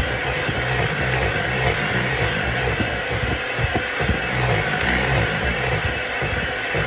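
Electric hand mixer running steadily, its beaters churning thick lemon-cake dough in a bowl, the low rumble wavering as the beaters meet the heavy dough.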